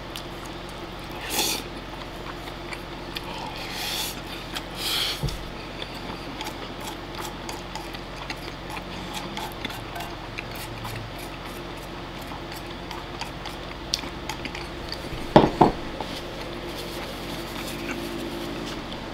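Wooden chopsticks clicking and scraping against a ceramic bowl while a man eats, with rice being shoveled and chewed. A few short louder noises stand out, the loudest about three-quarters of the way through.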